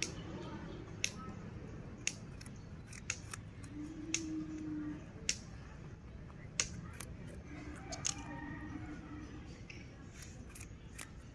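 Rabbit biting and chewing a piece of raw radish: about a dozen sharp, crisp crunches at irregular intervals.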